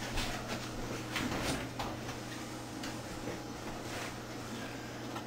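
A few scattered soft clicks and knocks as a refrigerator door is pulled open, over a steady low hum.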